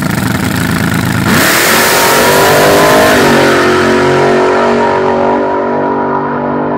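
Front-engine slingshot dragster launching from the start line: its engine bursts into a loud full-throttle roar about a second in. The pitch climbs, drops a little about three seconds in, then holds a steadily falling note that fades and dulls as the car runs away down the strip.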